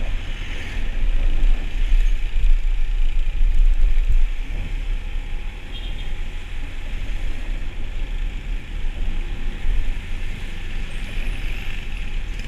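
Motorcycle ride: a steady low rumble of engine, tyres and wind, louder in the first four seconds or so.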